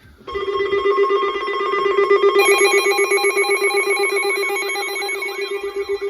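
Electronic emergency alert tones ringing in a rapid bell-like pulse, starting about a quarter second in, heralding an incoming weather warning. A higher layer of tones joins about two seconds in, and a wavering siren-like tone rises and falls through the second half.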